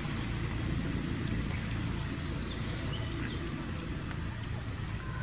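Steady outdoor background noise: a low rumble with a hiss over it, with a few faint, brief high chirps about halfway through.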